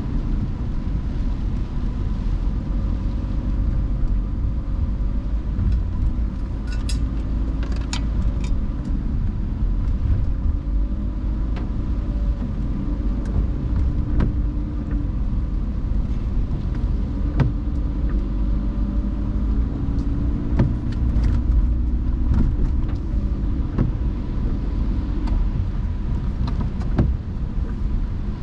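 A car driving in the rain: a steady low road rumble with a faint engine tone that drifts up and down with speed, and scattered sharp clicks, clustered about a quarter of the way through.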